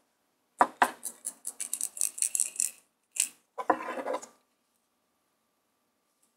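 Wristwatch being shaken in the hand, with something loose moving around inside the case: a quick run of small metallic clicks and rattles for about two seconds, then two shorter bursts, before it goes quiet.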